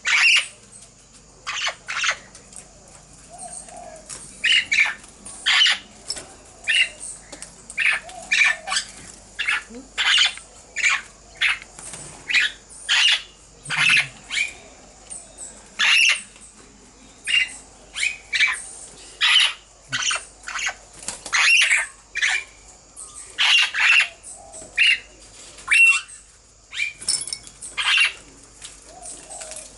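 Princess parrot chick giving short, harsh begging squawks over and over, about one to two a second, asking its mother to feed it.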